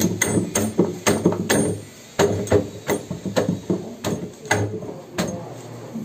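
Sharp metal clicks and knocks of steel bolts and nuts being fitted through a butterfly valve's pipe flange, coming irregularly about two or three a second and stopping about five seconds in.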